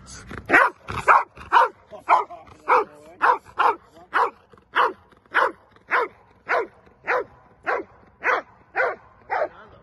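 Large shepherd-type protection dog barking over and over in a steady rhythm, about two loud barks a second.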